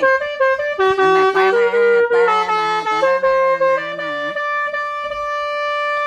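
Basuri-style multi-trumpet 'telolet' air horn playing a tune. Several horns sound together, stepping quickly from note to note, then hold one long chord from about three seconds in; the lower horns drop out a little past four seconds.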